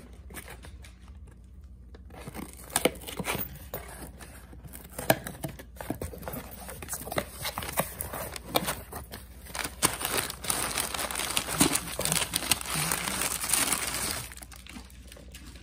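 A cardboard shipping box being opened by hand: scattered short taps and scrapes of the flaps, then about ten seconds in a few seconds of loud crinkling of brown kraft packing paper as a wrapped item is lifted out.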